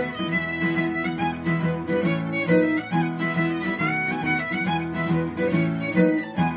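Fiddle playing a Celtic fiddle tune, a quick run of changing notes, with acoustic guitar accompaniment underneath.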